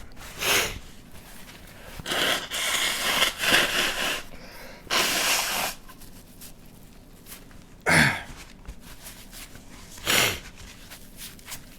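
A man breathing hard and making noisy nose and breath sounds after a bout of sneezing, in about five bursts: two longer ones in the first half and two short, sharp ones near the end.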